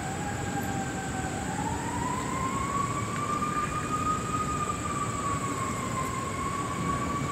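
A distant siren wailing, its pitch rising slowly over the first few seconds and then easing back down, over a low rumble of traffic and a steady high-pitched whine.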